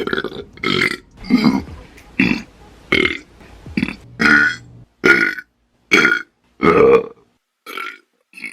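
A woman burping over and over, about a dozen short belches in quick succession, each under half a second, after drinking carbonated soda.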